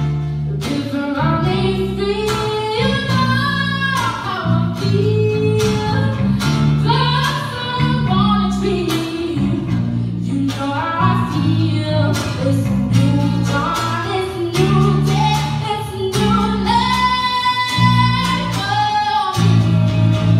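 A song sung by a woman over guitar, with a steady bass line and a regular beat.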